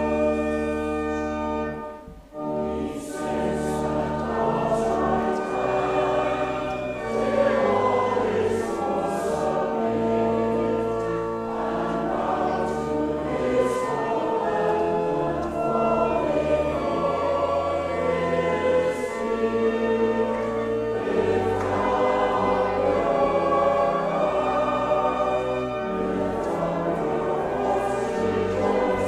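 A choir singing a hymn over a sustained accompaniment with steady low bass notes. The music drops away briefly about two seconds in, then carries on.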